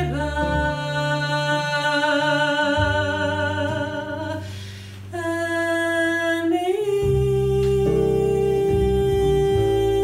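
Mezzo-soprano singing long held notes with vibrato, accompanied by a double bass. She breaks for a breath about halfway, then rises to a higher note and holds it.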